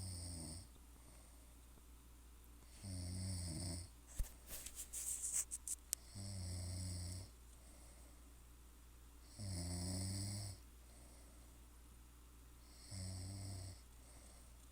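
A sleeper snoring in a slow, regular rhythm: each snore lasts about a second and comes every three to four seconds. Between the second and third snores there is a quick run of sharp clicks, the loudest sounds here.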